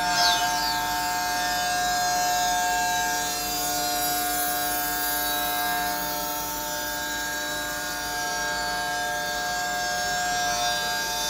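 SIMAL S98 CNC machining center running, with a steady high-pitched whine of several held tones over a hiss.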